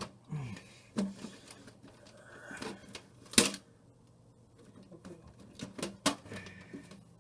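Clicks and knocks of hands working the plastic front panel off a desktop computer case, with one sharp loud snap a little over three seconds in and a few more clicks near six seconds.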